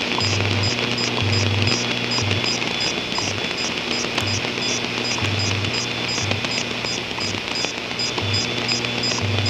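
Radio static hiss with an unidentified beeping signal: low-pitched tones keyed on and off in an uneven mix of short and long beeps, over a fast, regular ticking pattern high in pitch.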